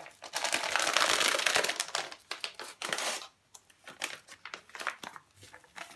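A Colman's chicken chasseur casserole-mix sachet being crinkled and torn open by hand: a dense crackling rustle for about three seconds, then a few lighter rustles and taps.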